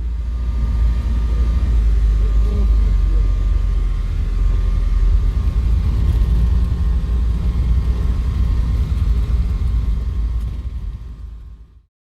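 A motor vehicle running with a heavy, steady low rumble and a faint steady whine, fading out near the end.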